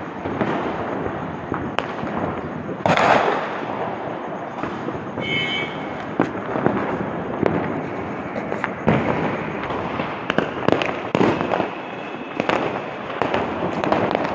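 Fireworks and firecrackers going off: a continuous crackle with many sharp bangs, the loudest about three seconds in.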